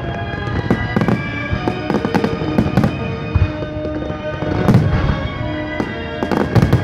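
Fireworks display: aerial shells bursting in quick succession, many sharp bangs with clusters of them about halfway through and near the end, over music playing along.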